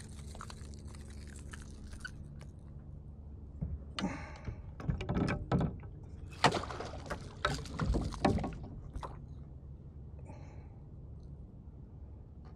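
A small spotted seatrout being landed and handled beside a kayak: a series of knocks, clatters and short splashy sloshes, most of them between about four and nine seconds in. Under them runs a steady low rumble.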